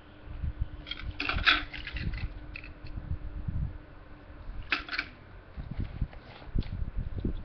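Metal pin-back button badges clicking and clattering against each other as they are handled and set down on a pile, with low bumps from the handling. Two clusters of sharp clicks, about a second in and just before five seconds in.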